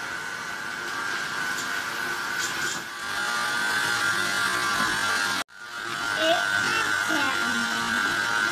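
Electric stand mixer's motor running steadily with a high hum as its beater mixes chocolate chip cookie dough in a stainless steel bowl. The sound cuts out abruptly about halfway through, then the motor runs on.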